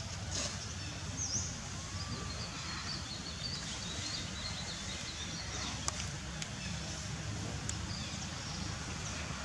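Outdoor background: a steady low rumble under faint, short high chirps, with a few sharp clicks about six to eight seconds in.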